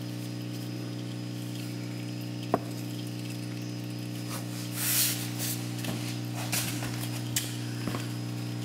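Steady electrical mains hum, a low buzz with evenly spaced overtones. A single sharp click comes about two and a half seconds in, and a brief hiss about five seconds in.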